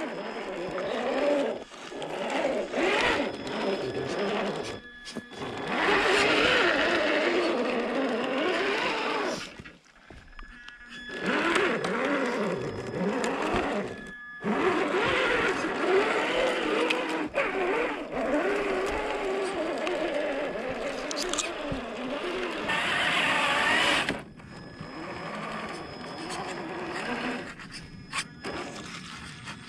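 Electric motor and gear drivetrain of a Carisma SCA-1E RC scale crawler whining, the pitch rising and falling with the throttle. It cuts out briefly several times.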